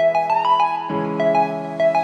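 Background music: a keyboard melody of short notes played over sustained chords, with the chord changing about a second in.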